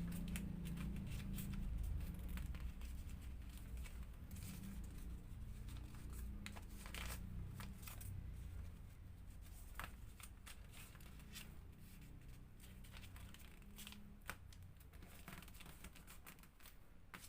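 Origami paper rustling and crinkling as it is handled and folded, with scattered sharp clicks and crackles as creases are pressed in, over a low background hum that fades through the first half.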